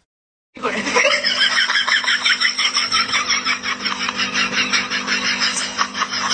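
A person laughing hard in rapid, even bursts over a steady low hum, starting about half a second in and going on without a break.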